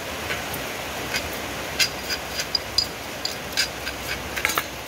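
Irregular light clinks and taps of a mortar and spoon against a stainless steel bowl, several ringing briefly, as pounded chili paste is scraped out of the mortar into the bowl, over a steady hiss of falling rain.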